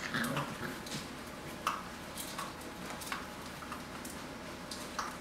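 Vizsla puppies at play: a brief growling whine in the first half second, then scattered light clicks and knocks as the puppies settle among the toys.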